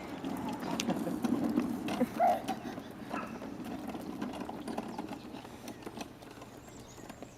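A child's ride-on pedal plane rolling over the ground, its wheels and plastic body rumbling and rattling with scattered clicks, fading toward the end. A short squeak about two seconds in.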